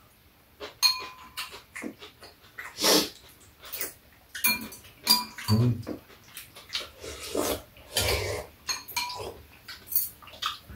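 Metal spoons and chopsticks clinking against bowls and a metal tray, several clinks ringing briefly, between noisy bursts of slurping and chewing as two people eat soup and side dishes.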